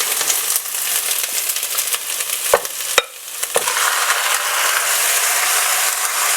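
Chicken and sliced onion sizzling in hot oil in a heavy-bottomed pan as they are stirred, with two sharp knocks of a utensil against the pan about halfway through. The sizzle grows louder in the second half.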